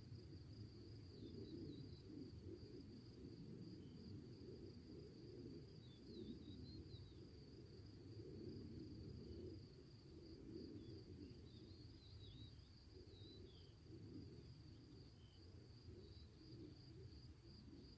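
Faint outdoor ambience: a steady high insect trill throughout, a few faint bird chirps, and a low rumble of background noise.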